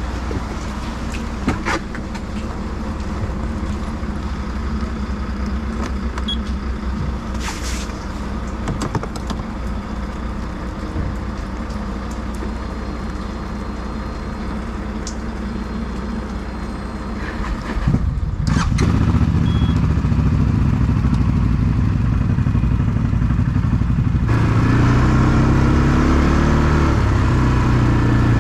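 ATV engines running at idle, then louder from about eighteen seconds in, with the revs rising and falling near the end.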